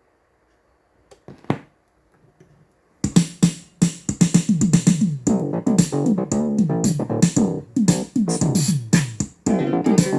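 A vinyl record starting to play on a Technics SL-5 linear-tracking turntable: after a couple of soft thumps, music with a steady drum beat and keyboards comes in suddenly about three seconds in and plays on loudly.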